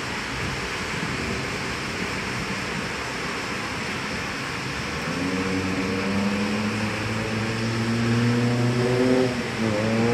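A car engine accelerating along the road, its note growing louder from about halfway, then dipping and climbing in pitch near the end, over a steady hiss of traffic on the wet road.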